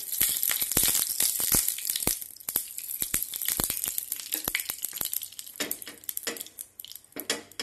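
Oil sizzling and crackling in the cups of a hot appam pan as it is greased, with a spoon scraping and clicking on the metal. The sizzle is loudest in the first couple of seconds and then dies down.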